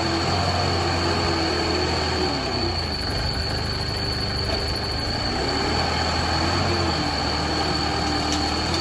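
LEHMAN ZL936 wheel loader's diesel engine running under load as it scoops sand and lifts the bucket, its pitch dipping and then rising again as the engine speed changes. A steady high whine runs underneath.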